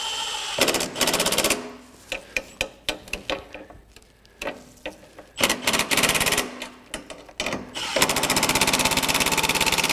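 Cordless impact driver on its lowest setting hammering carriage bolts tight on a snowblower's handlebar, in three bursts of rapid rattling hammer blows: a short one shortly after the start, another past the middle, and a longer one near the end. Light clicks of handling come between the bursts.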